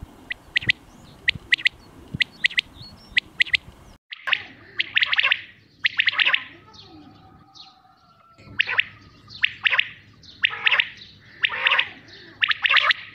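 Quail calling. First comes the common quail's three-note 'wet-my-lips' song, repeated about once a second. After an abrupt cut about 4 seconds in, a harsher, noisier series of quail calls follows in clusters of several notes.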